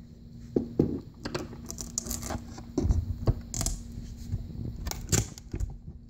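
Plastic electronics enclosure being handled and pressed onto a wooden door fitted with Velcro strips: a run of irregular knocks and clicks with scratchy, crackly scraping between them.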